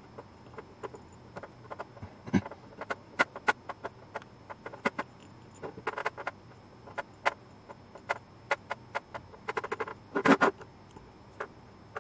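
Irregular sharp clicks and taps of a small black metal RF module case and its screws being handled and worked by hand on a wooden bench, with a quick run of clicks near the middle and the loudest, densest burst about ten seconds in.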